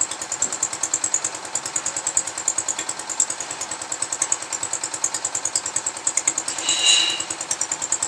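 Single-cylinder diesel engine of a portable concrete mixer running steadily with an even, fast chugging of about eight or nine beats a second. A short high-pitched squeal sounds about seven seconds in.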